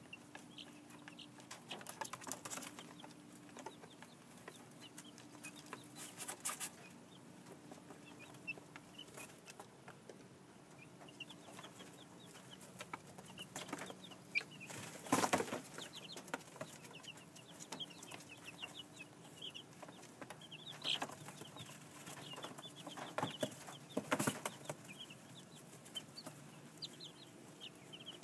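Young chicks peeping, many short high peeps one after another, with a few sharp knocks, the loudest about halfway through.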